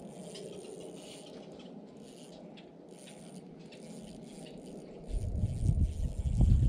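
Spinning reel being cranked while playing a hooked trout: a fast, rattling run of small clicks. About five seconds in, a loud low rumble comes over the microphone.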